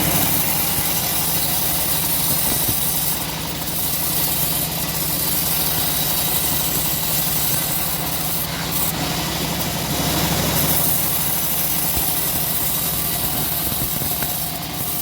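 Homemade engine-driven bandsaw mill running steadily, its blade sawing through teak wood with a continuous engine drone and rasping cut.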